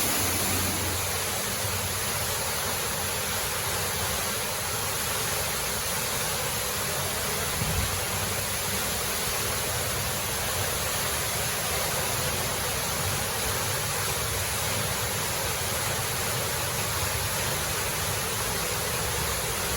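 Steady rushing of a waterfall, an even roar of falling water, with a brief low knock about eight seconds in.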